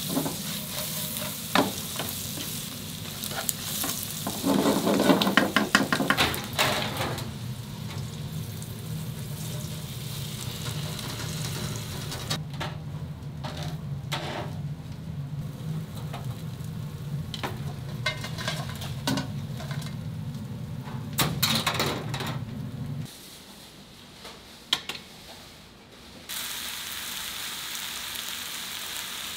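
Pork intestines (gopchang) sizzling as they cook, with bursts of metal utensil clicks and clatter about five seconds in and scattered taps after. A steady low hum under the sizzle stops a little over twenty seconds in, and the sound drops away for a few seconds before the sizzle returns.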